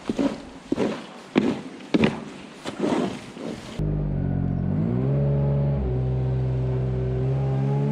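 Irregular knocks and bursts for about four seconds, then an engine running steadily. The engine's pitch rises about a second after it comes in, then holds.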